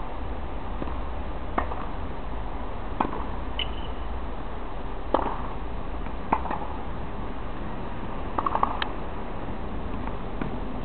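Tennis ball struck by rackets and bouncing on a hard court during a rally: sharp pocks every second or two, with a quick run of them late on, over a steady low background noise. A brief high squeak about three and a half seconds in.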